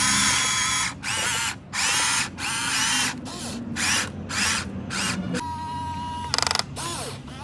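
Electric motors of a Huina RC excavator whining in a quick series of about eight short bursts, their pitch sliding up and down as the controls are worked. A quieter stretch follows, with a steady thin tone and a brief buzz near the end.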